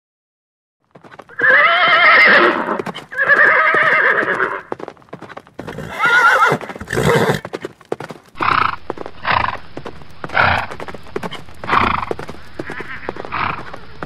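Horse whinnying: several long, wavering neighs in the first half, then a run of shorter calls about once a second, over hooves clip-clopping.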